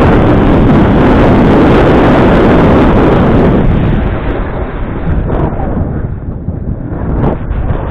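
Wind buffeting the camera microphone during a fast run down a snow slope: a loud, steady roar that eases about four seconds in and builds again near the end.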